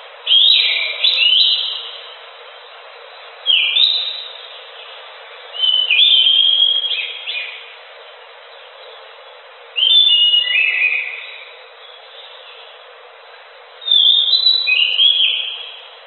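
Chestnut-backed thrush (anis macan) singing energetically: five short phrases of high, quick notes, many sliding downward, each phrase a second or two long with pauses of a couple of seconds between them.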